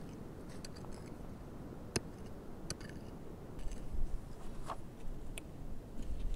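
Small short-handled hoe chopping and scraping into hard, dry earth, giving a few sharp knocks and scrapes at irregular intervals. A low rumble comes in about halfway through.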